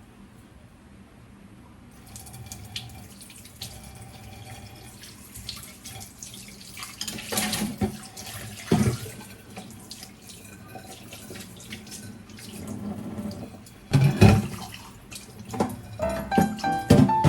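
Tap water running into a sink, with a few sharp knocks about nine and fourteen seconds in.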